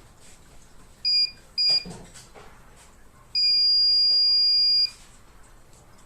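Cecotec Conga 1390 robot vacuum beeping: two short electronic beeps, then one longer beep of about a second and a half.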